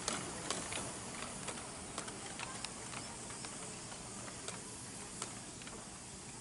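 A miniature steam locomotive on 7¼-inch gauge track moving slowly with its train: a steady hiss of steam with light, irregular clicks through it.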